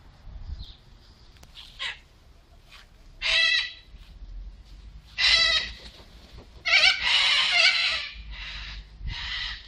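Cockatoos screeching from the tree canopy: a series of harsh half-second screeches, then a longer run of overlapping calls about seven seconds in, and softer calls near the end.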